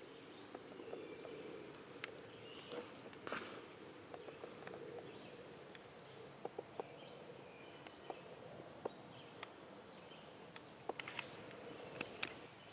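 Quiet woodland ambience with scattered small clicks and soft rustles.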